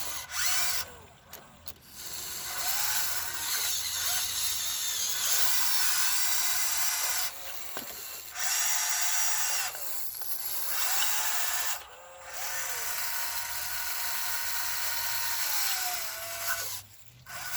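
Huina 1599 RC excavator's electric motors and gearboxes whirring in long runs, with a whine that rises and falls as they start and stop, and several short pauses.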